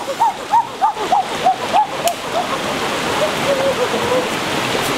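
A run of short, arching pitched calls, about three a second, fades out over the first two seconds or so. After that comes the steady rushing of a rocky forest stream.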